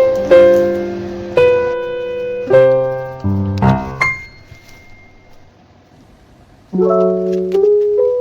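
Background music on piano: soft chords that decay one after another, a pause of about two and a half seconds, then the chords start again.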